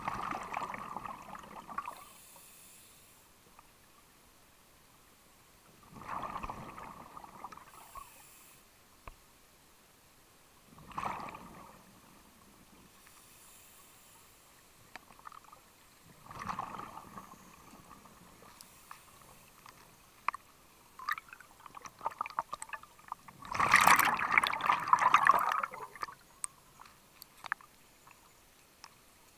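Scuba diver breathing underwater: exhaled air gurgles out of the regulator in bursts of bubbles about every five seconds, the last and loudest near the end, with faint ticks between breaths.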